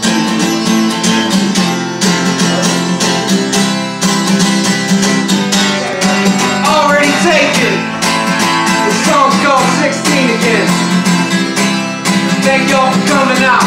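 Acoustic guitar strummed in a steady, quick rhythm, about four strokes a second, playing a song's intro.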